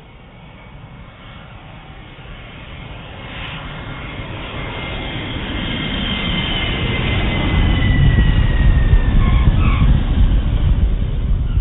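Boeing jet airliner taking off: jet engine noise growing steadily louder, with a deep rumble building toward the end. A high whine glides slowly down in pitch about midway.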